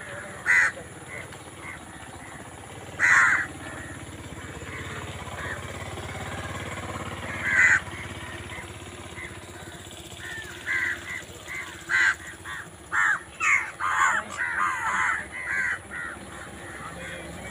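Crows cawing: a few single caws spaced out at first, then a quick run of many caws about ten seconds in.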